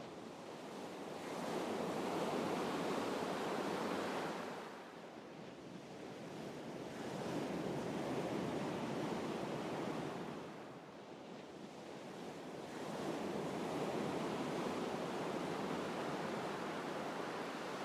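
Ocean surf: waves wash in and recede, swelling and fading about every six seconds.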